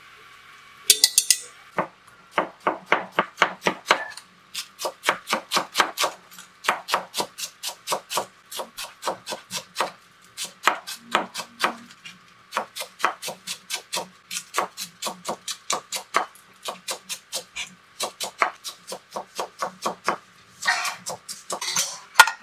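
Kitchen knife shredding cabbage on a plastic cutting board: quick, even chops about five a second, broken by short pauses. A brief clatter comes about a second in, and a rustle near the end.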